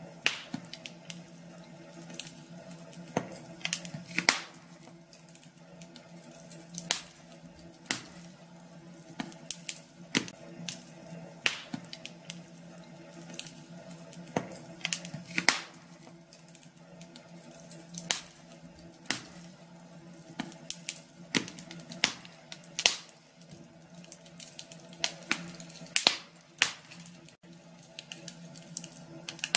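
Wood fire crackling in a fireplace: irregular sharp pops and snaps, one or two a second, over a soft steady hiss.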